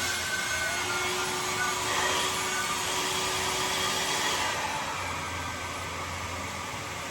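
Newly bought handheld hair dryer running on test, a steady rush of blowing air. About five seconds in the rush softens and a low hum comes up under it.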